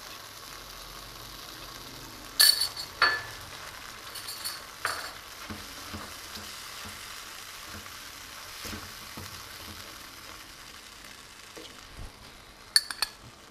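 Onion and spice mixture sizzling gently in a non-stick karahi as soy sauce is added and stirred in with a wooden spatula. A few sharp clinks come about two and three seconds in and again near the end.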